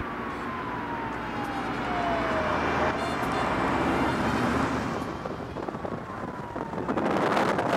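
Vehicles driving on a road, heard from a moving car: steady road and wind noise, with an engine whine that falls in pitch over about two and a half seconds and falls again near the end.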